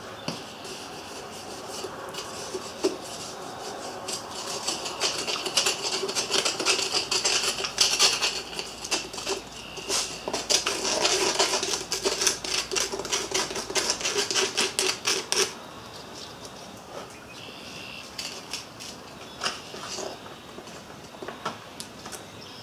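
Small clinks, scrapes and rattles of metal and tools as a freshly poured aluminum hand-wheel casting is dug out of black foundry sand. A dense run of clicks and rattles lasts from about four to fifteen seconds in, then comes sparser clicking.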